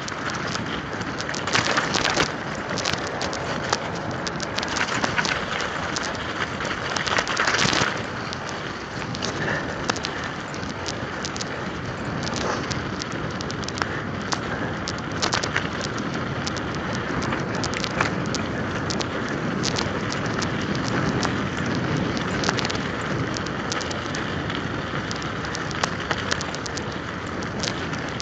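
Mountain bike tyres rolling over an icy, crusted-snow path: a steady crackling hiss with frequent sharp clicks and rattles, a little louder about two seconds in and again near eight seconds.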